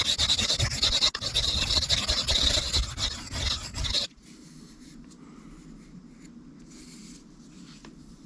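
Steel knife blade stroked back and forth on a sharpening stone, a rapid, uneven scraping rasp that stops abruptly about four seconds in.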